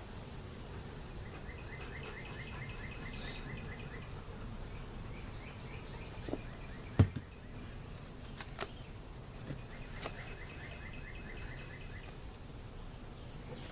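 A bird sings a fast trill of repeated notes in two spells over a steady low outdoor background. A few sharp knocks come from the wooden hive boxes being handled and set back in place; the loudest is about seven seconds in.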